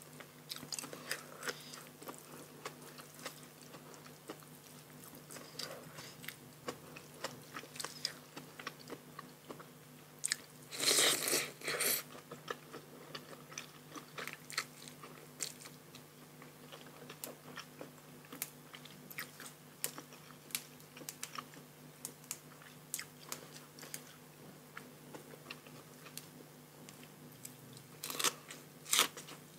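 Close-miked eating: chewing and crunching of a rice-noodle salad with raw shrimp and fresh vegetables, with many small mouth clicks and two louder bursts, one about eleven seconds in and one near the end.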